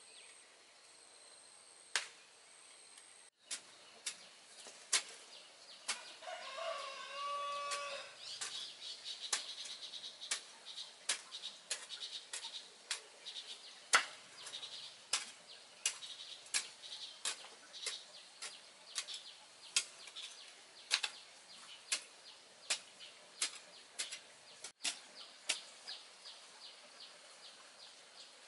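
Hand tools striking soil and stones in irregular sharp knocks, about one or two a second, as a garden bed is hoed and edged with rocks. Insects buzz steadily in the background, and a bird calls briefly about six seconds in.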